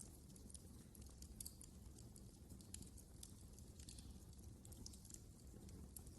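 Wood fire crackling faintly: irregular small snaps and pops over a steady low rumble.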